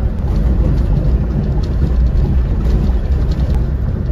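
Bus travelling on the road: a steady low engine and road rumble.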